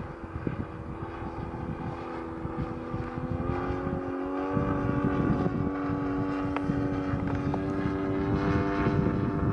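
Radio-controlled Extra 260 aerobatic model plane with a ZDZ 180 two-stroke petrol engine flying overhead, its engine and propeller droning steadily. The pitch rises about four seconds in and then holds. Wind rumbles on the microphone throughout.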